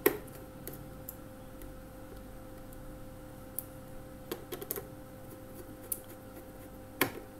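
Screwdriver turning a screw on a screw terminal block to clamp a wire: scattered faint clicks and small scrapes of metal on metal, with a sharper click about seven seconds in, over a faint steady hum.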